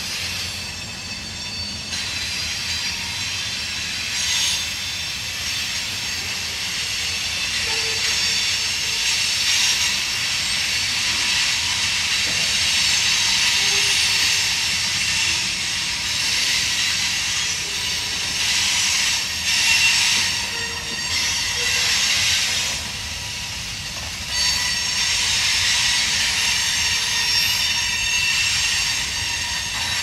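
Freight train of tank cars and a covered hopper rolling past, steel wheels running on the rails. A high-pitched screech and hiss from the wheels swells and fades several times.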